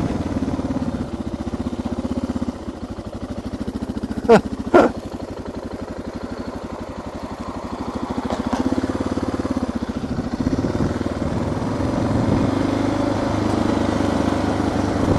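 Suzuki DR650's single-cylinder engine running under way, heard from inside a noisy helmet through a microphone loose against the rider's cheek, with wind rush. The engine note eases off about three seconds in and picks up again after about seven seconds; two sharp knocks come just after four seconds.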